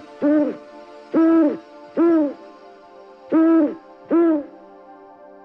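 An animal calling in pairs of short pitched notes, each note arching up and down in pitch, three pairs a couple of seconds apart. A faint steady drone runs behind the calls.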